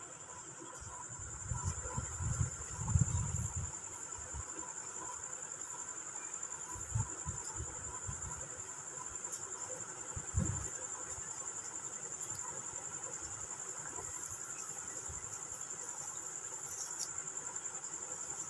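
Steady high-pitched cricket trill. A few low thumps break in about two to three seconds in and again around seven and ten seconds, and these are the loudest sounds.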